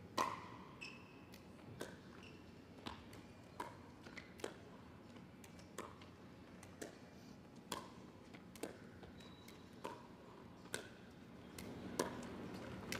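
Pickleball paddles striking a Franklin X-26 plastic ball in a rally at the net: sharp, hollow pops about once a second.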